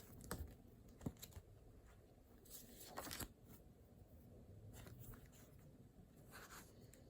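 Faint desk sounds of someone studying: a few light clicks and knocks, then short paper rustles about three seconds in and again near the end.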